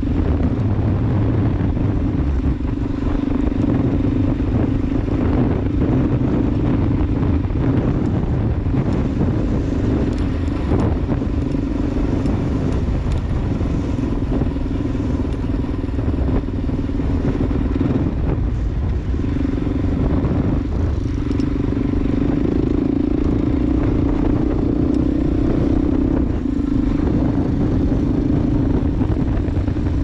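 Motorcycle engine running steadily on the move, with the engine note easing off briefly a few times, over steady wind and road noise.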